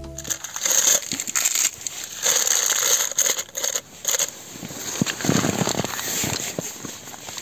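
Thin plastic bag crinkling and rustling in irregular bursts as it is pushed down and shaped inside the cup of a Jetboil stove.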